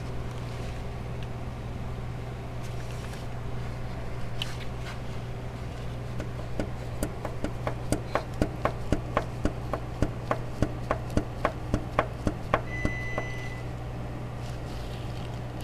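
A regular series of sharp knocks, about three a second, lasting roughly six seconds and starting about six seconds in, over a steady low hum. A short high beep follows just after the knocks stop.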